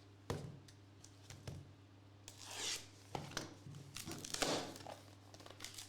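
Trading card packaging being handled and torn open: a sharp tap, then two rustling, tearing stretches of wrapper about two and a half and four and a half seconds in, with small clicks between, over a steady low hum.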